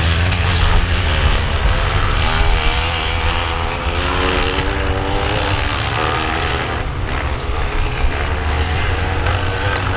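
Sidecar motocross outfits' engines running hard under race throttle, their note climbing through the middle and then dropping away as the machines pass.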